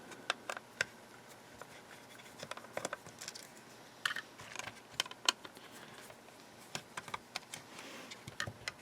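Irregular light clicks and taps of small plastic parts being handled and pried as a Brother P-Touch PT-100 label maker's case is opened up.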